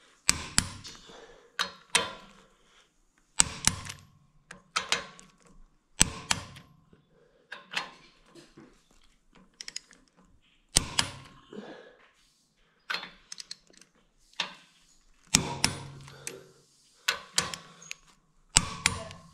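A click-type torque wrench tightening cylinder head bolts to 80 foot-pounds, the final pass of a head gasket job. Sharp metallic clicks and clanks of the wrench and socket come mostly in close pairs, one every one to two seconds, with quiet between them.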